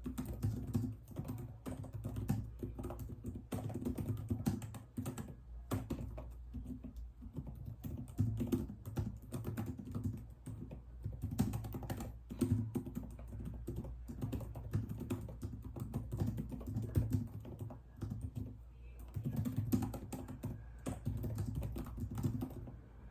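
Typing on a computer keyboard: continuous runs of keystroke clicks, broken by brief pauses twice.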